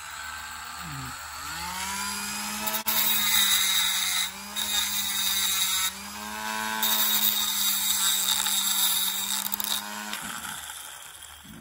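Dremel rotary tool with a thick cutoff wheel, its motor whine rising over the first couple of seconds and then running steadily. A small copper sword guard is ground against the flat of the wheel in two bouts of harsh grinding, and the motor winds down about ten seconds in.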